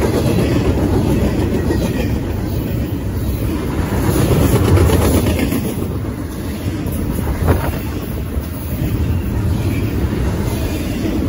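Double-stack intermodal container freight train passing: the steady rumble and rattle of steel wheels on rail. One sharp knock stands out about seven and a half seconds in.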